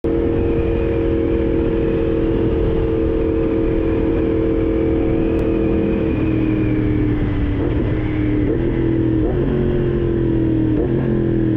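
Yamaha MT-10's crossplane inline-four through an SC Project exhaust, running steadily at highway speed. About halfway through, the engine note starts to fall as the bike slows, with a few brief upward flicks in the revs.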